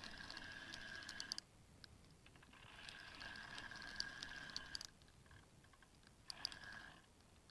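Spinning reel on a feeder rod being cranked, its gears whirring with rapid fine clicks, in three spurts with short pauses: a hooked fish being reeled in.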